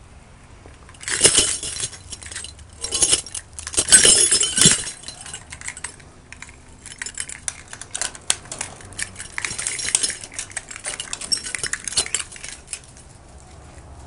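Keys jangling and metal lock hardware on a security gate and door rattling and clinking in irregular bursts. The loudest bursts come about a second in and again around four seconds in, followed by lighter clinking that stops near the end.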